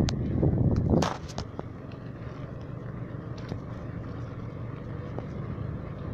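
Wind buffeting the phone's microphone, with a steady low rumble of bicycle riding on a concrete road. A few sharp knocks in the first second and a half, louder gusts there, then an even rumble.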